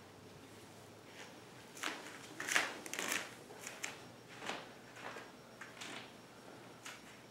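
Rustling of a fabric draping sheet being lifted, folded and tucked around a person on a massage table, in a series of short swishes, the loudest about two and a half seconds in.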